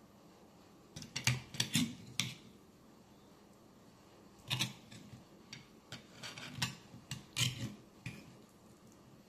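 Metal knife and fork clinking and scraping on scallop shells as they cut into cheese-baked scallops, in two spells of quick clicks and scrapes, the first about a second in, the second from about four and a half seconds to eight seconds.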